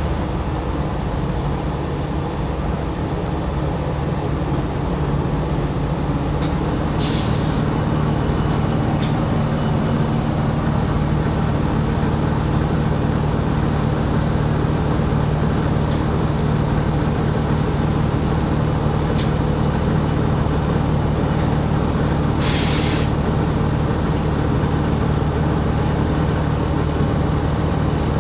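2020 New Flyer XD60 articulated bus running with a steady engine and drivetrain drone, and two short air-brake hisses, about seven seconds in and again about 22 seconds in.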